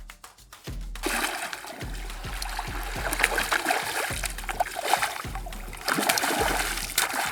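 Water splashing and spattering, starting about a second in and running on with many sharp splashes, over background music with a steady bass beat.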